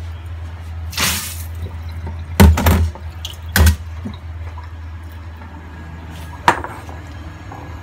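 A short splash of running water into a stainless steel kitchen sink, then three loud knocks close together and a sharp click later, over a steady low hum.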